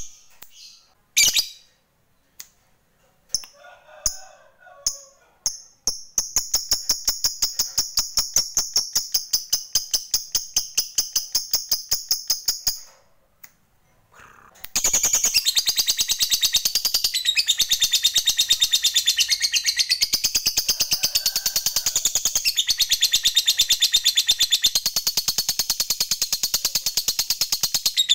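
Lovebird calling: a few short chirps, then a fast rattling 'ngekek' trill for about seven seconds, a short pause, and a long unbroken ngekek trill from about halfway through.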